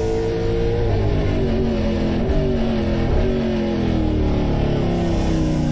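Stock car's V8 engine heard through the in-car camera, running hard at high revs, its pitch sliding down in steps over several seconds.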